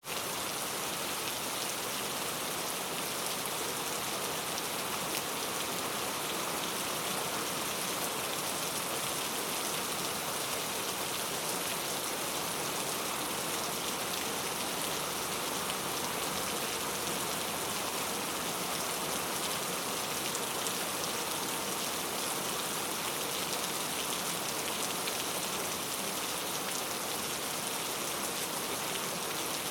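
Heavy rain falling steadily on a camping tent, an even, unbroken hiss.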